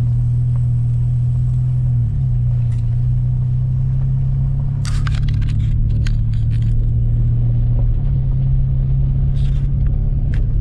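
Truck driving slowly on a dirt forest road: a steady low engine and road drone, with a few short clicks and rattles about five seconds in and again near the end.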